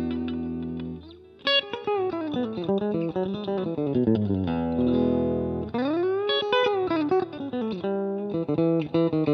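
Electric guitar played through a 1964 Fender Super Reverb all-tube amplifier: a chord rings and fades over the first second, then after a brief gap a single-note lead line follows, with a held note near the middle and string bends that rise and fall.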